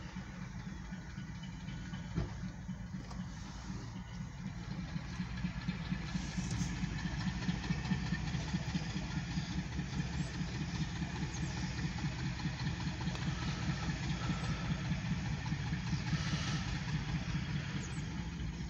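Diesel locomotive engine rumbling steadily, growing louder about five seconds in as it throws up exhaust smoke, heard muffled from inside a car.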